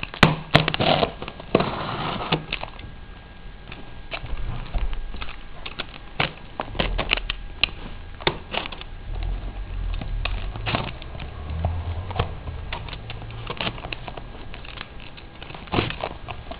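Utility knife slitting the packing tape on a cardboard box, with irregular clicks, scrapes and knocks as the box is handled and turned on a wooden table.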